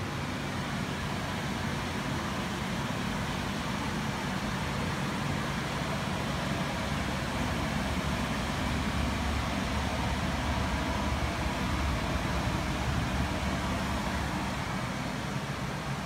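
Old Heil gas furnace running: a steady low hum and rush of air from its blower fan, which is failing and not spinning fast enough to move enough air.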